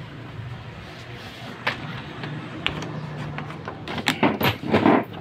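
A few sharp clicks and knocks of handling, with a louder cluster about four to five seconds in, over a low steady hum.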